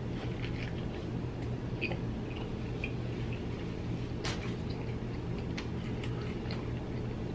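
Close-up chewing and wet mouth sounds from a person eating a ranch-soaked chicken bacon sandwich on a ciabatta bun: small soft clicks over a steady low hum, with one sharper click about four seconds in.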